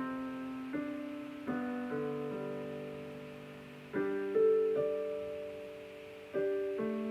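Solo piano playing a slow early-level piece: notes and chords struck every second or so and held, each left to ring and fade before the next, with the strongest strikes about four and six seconds in.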